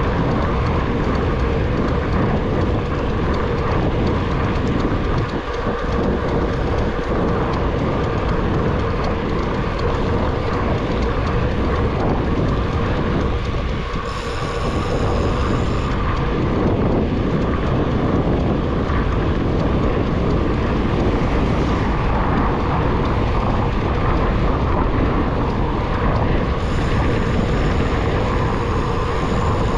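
Steady, loud rolling and wind noise of a vehicle in motion, with a constant hum underneath.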